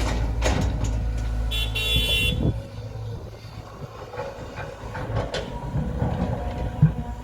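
Heavy earthmoving machinery at work. A steady low engine drone drops away about two and a half seconds in, with scattered knocks and clanks, and a short high-pitched horn-like beep just before the drone drops.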